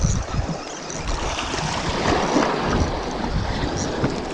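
Wind blowing across the microphone, with small waves washing over shallow water and rocks at the shore.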